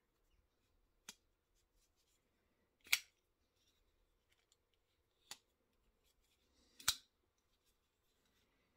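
Petrified Fish PFP03 Victor liner-lock flipper knife being flipped open and closed: four sharp metallic clicks about two seconds apart, the second and fourth loudest, as the blade snaps into and out of its lock.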